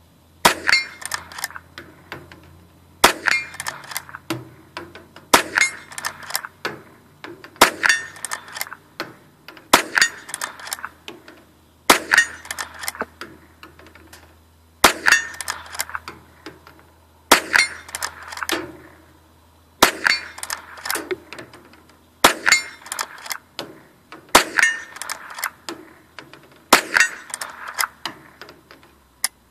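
Henry Golden Boy lever-action rifle firing .22 Long Rifle: twelve shots about two to two and a half seconds apart, each followed by a ringing clang from a struck steel target and smaller clicks as the lever is cycled.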